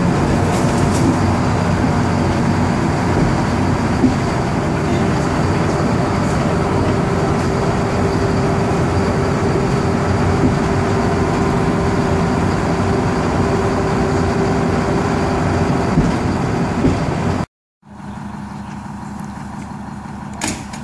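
Steady running noise of a vintage SNCV diesel railcar heard from inside its cab: engine and wheels on rail. After a brief drop-out about 17 seconds in, the railcar's diesel engine is heard idling from outside, with an even low pulsing beat.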